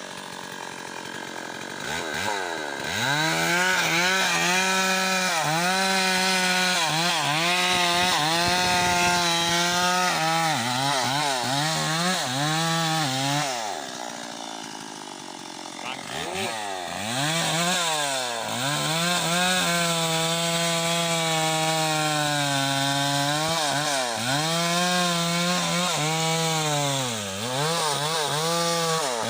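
Stihl chainsaw cutting teak at full throttle, its pitch sagging and recovering again and again as the chain loads up in the wood. About halfway through it drops to idle for a couple of seconds, then revs back up and cuts again.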